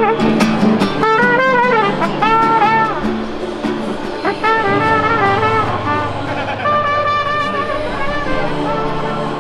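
Mariachi band playing: a trumpet melody of held, wavering notes over strummed guitar.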